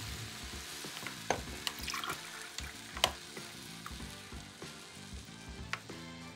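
Soft background music with a steady run of notes, with a few light clicks and taps about a second in, around three seconds in and near the end.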